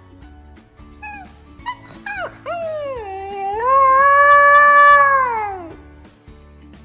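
A husky-type puppy gives a few short high calls, then one long howl that rises, holds and falls away near the end. Background music with a steady beat plays under it.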